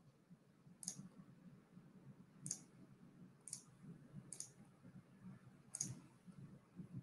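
Faint clicks of a computer mouse, about six spread irregularly over several seconds, as screen sharing is set up on a video call.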